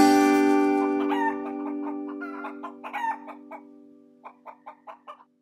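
A sustained music chord ringing out and fading, with a series of short chicken clucks over it that settles into an even run of about five a second near the end, then stops.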